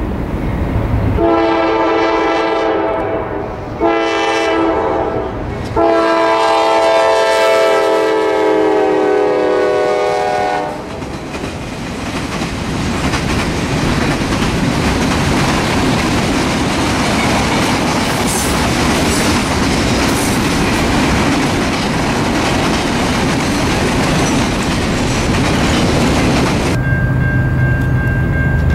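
Freight train locomotive's air horn sounding three blasts, the last one long and dropping slightly in pitch as the train passes. Then the freight cars roll by with a steady rumble and wheel clatter. Near the end the sound cuts abruptly to a steady low hum with a thin high tone.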